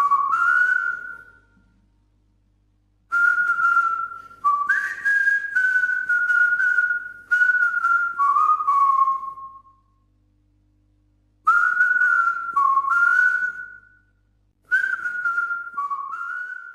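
A melody whistled in short phrases, moving up and down between a few notes, with brief pauses between phrases. It cuts off at the end.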